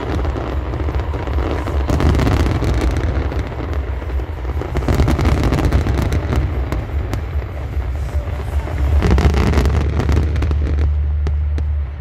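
Aerial fireworks going off: many sharp bangs and crackling pops in quick succession over a steady low rumble, thinning out near the end.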